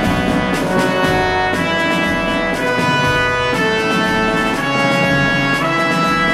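Instrumental background music led by brass, played as held chords that change every second or so.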